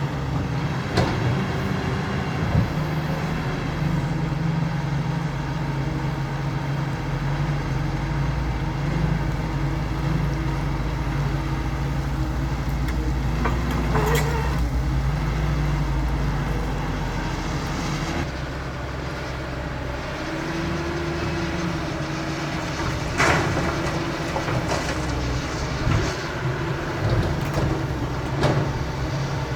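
CAT 320 hydraulic excavator's diesel engine running steadily, easing slightly about two-thirds of the way through, with a few sharp clanks scattered through the second half.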